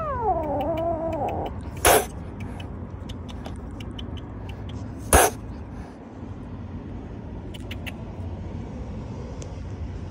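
Angry kitten: a meow falling in pitch at the start, then two short, sharp hisses about three seconds apart. A steady low rumble runs underneath.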